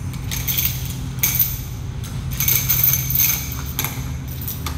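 Metal chain clinking and jingling as it is handled at the waist, in several short bursts, over a steady low hum.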